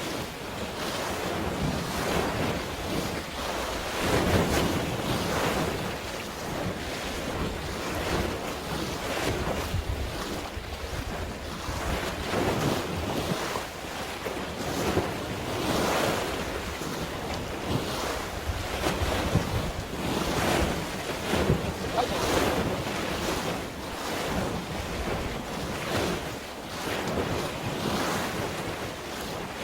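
Waves washing in irregular surges, with wind buffeting the microphone.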